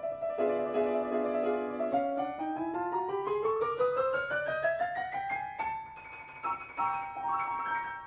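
Piano accompaniment: repeated chords, then from about two seconds in a long run of notes climbing steadily upward for several seconds, a short quieter held chord, and chords again near the end.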